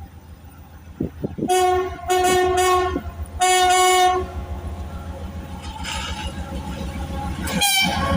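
A diesel locomotive's horn sounds three blasts in quick succession, each one steady in pitch and lasting under a second. Beneath it the locomotive's diesel engine runs steadily, growing louder toward the end.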